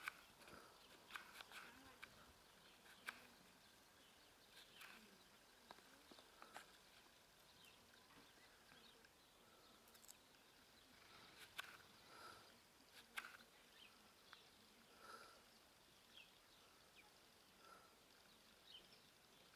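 Near silence: faint outdoor ambience with a few scattered soft clicks and brief faint chirps at irregular moments.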